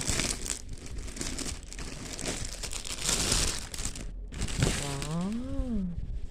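Packaging crinkling and rustling as a t-shirt is pulled out and unwrapped. Near the end comes a short hummed vocal sound that rises and falls in pitch.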